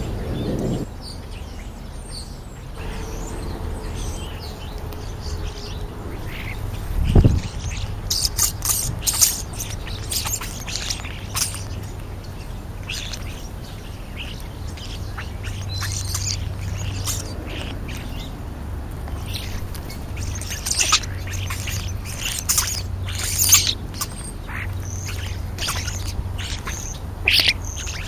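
A small flock of European starlings calling while feeding on the ground: scattered short, sharp chirps, clicks and squawks that start about eight seconds in and come in quick clusters, with a single thump just before them.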